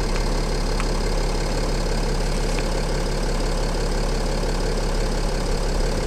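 Mercedes E 320 CDI's V6 diesel engine idling steadily, with a few faint ticks over it.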